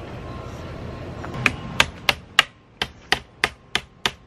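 Hand ratchet wrench clicking as it works a bolt on a battery box: nine sharp, separate clicks about three a second, starting about a second and a half in.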